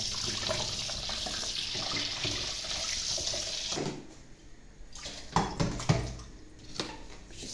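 Kitchen tap running, its water splashing over grapes on a plate held above a steel sink basin. The flow stops about four seconds in, followed by a few sharp knocks and clatters of dishes in the sink.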